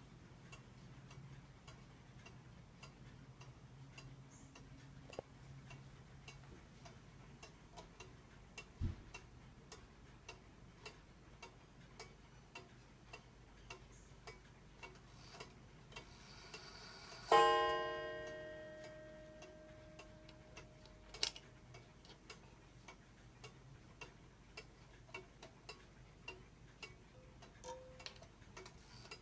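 Junghans pendulum wall clock ticking steadily, then a single strike on its gong about two-thirds of the way through that rings out and fades over several seconds. A soft thump sounds about nine seconds in.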